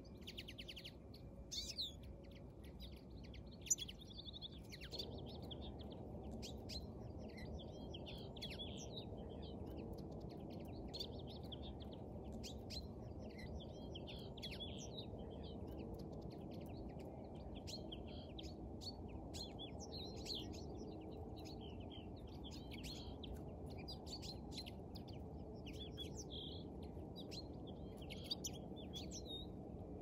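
Small songbirds chirping busily, with many short, quick calls overlapping throughout. A steady low rumble comes in underneath about five seconds in.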